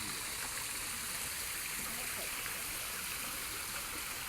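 Creek water running steadily over a small, low-flowing waterfall: an even rushing trickle.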